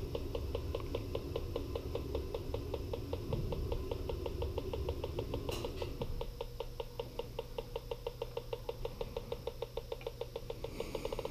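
Bacharach electronic combustible gas leak detector beeping in a fast, even tick several times a second over a low steady hum. The raised beep rate shows natural gas picked up around the boiler's gas valves, the sign of a small leak.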